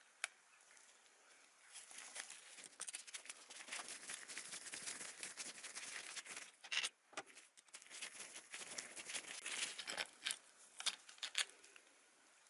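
Handling noises: a dense run of small clicks, taps and rustling of parts and tools being worked by hand, with a few sharper taps.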